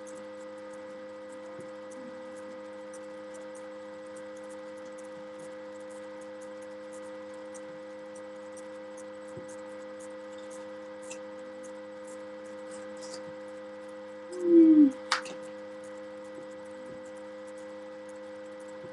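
Steady electrical hum made of several tones, with faint small clicks of handling. About fourteen seconds in comes a brief loud sound that falls in pitch, then a sharp click.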